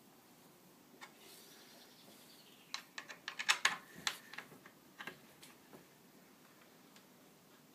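Light metallic clicks and taps of an Allen key working the chair's bolts as they are tightened: one click about a second in, a quick run of clicks in the middle, and a few more after.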